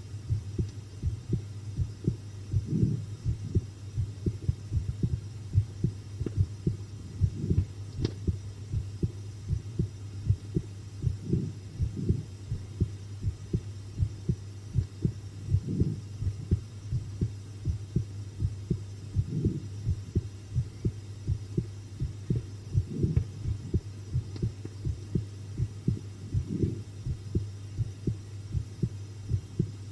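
Human heartbeat recorded up close: a steady run of soft low thumps, with a low hum underneath and a slower swell every three to four seconds.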